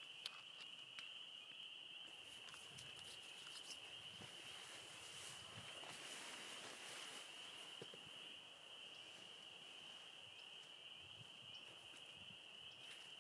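Faint, steady high-pitched chorus of spring peepers calling together, with a few soft rustles and ticks.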